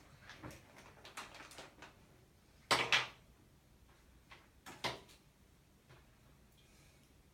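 Faint scattered clicks and knocks of things being handled in a small room, the loudest a quick double knock about three seconds in and another knock near five seconds.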